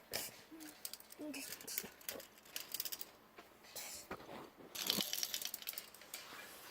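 Plastic Lego-brick fidget spinners clicking and rattling as they are handled and spun on a hard surface, with a brief scraping rush about four seconds in.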